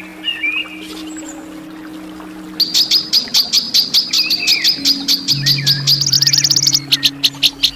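Songbird calling: a few soft chirps, then a rapid train of sharp, high repeated notes that starts a little over two seconds in and speeds up about six seconds in. Under it runs a low, steady music drone.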